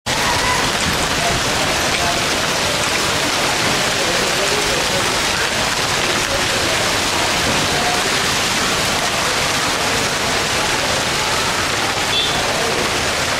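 Heavy tropical rain falling steadily: a loud, even hiss of downpour on a flooded road and palm leaves.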